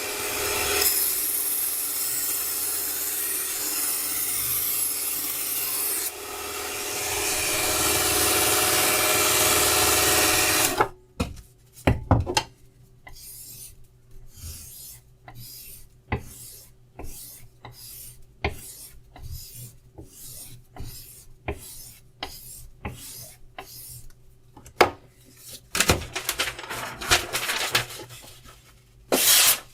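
Mini belt grinder running with a knife edge pressed to its abrasive belt: a steady, loud grinding hiss for about the first eleven seconds. After that comes a long series of short separate rubbing strokes, about one or two a second.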